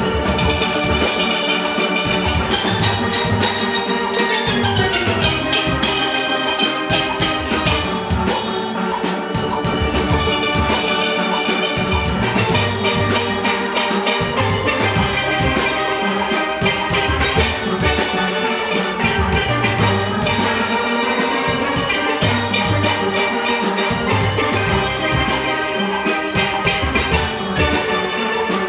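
Steel orchestra playing: steelpans ringing out a fast melody over bass pans and a drum kit keeping a steady beat.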